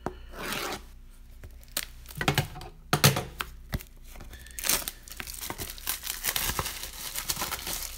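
Plastic wrapping being torn and crinkled off a sealed box of trading cards: irregular sharp crackles, sparse at first and coming thick and fast from about halfway through.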